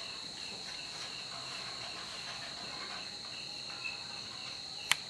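Steady high insect chirping: a continuous trill with a softer chirp pulsing a few times a second beneath it. A single sharp click sounds near the end.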